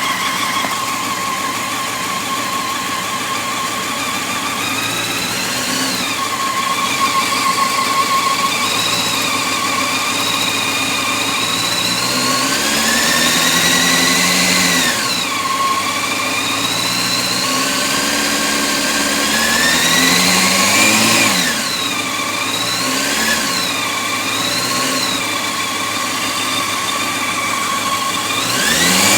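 Honda CBR600F4i inline-four engine running, idling at first and then revved up and let fall back several times in the second half. It carries a ticking that the owner suspects comes from the cam chain tensioner.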